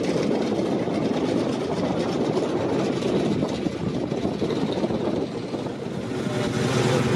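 Piston engine of a single-engine light aircraft running as it flies low along the runway. About six seconds in, the sound changes to the steady hum of an Avro Anson's twin radial engines running at low power.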